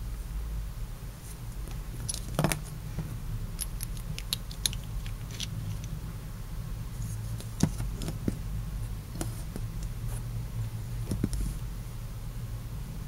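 Small plastic and metal Beyblade parts clicking and tapping against each other as they are handled and pushed together, in scattered sharp clicks with a quick run of them about four seconds in, over a steady low hum.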